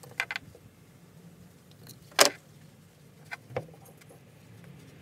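Metal clicks and clinks of a folding Allen key set being handled against a steel wheel-and-axle set while the eccentric set screws are fastened: a few light clicks at the start, one sharp loud clack about two seconds in, and two lighter clicks a second or so later.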